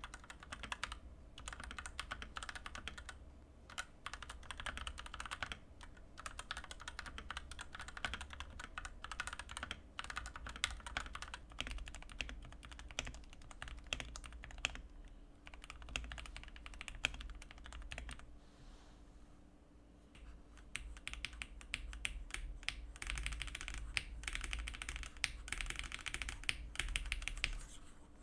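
Fast, continuous typing on a Fantech MAXFIT61 mechanical keyboard with Outemu red switches and stock keycaps: dense key clicks and bottom-outs, first on the unmodified board, then partway through on the same board after modding (silicone dampener, tape, foam and lubed switches). The typing eases off briefly about two-thirds of the way in, then picks up again.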